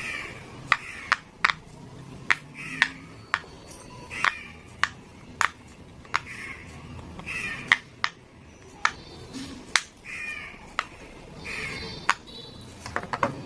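Silicone pop-it fidget toy being pressed, its bubbles popping in sharp clicks at an uneven pace of about one or two a second.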